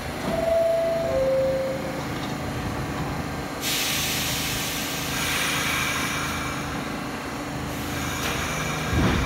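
R46 subway train at a station platform: its door chime sounds two falling tones, then a sudden loud hiss of compressed air starts and runs for about four seconds over a low rumble, and a low thump comes near the end.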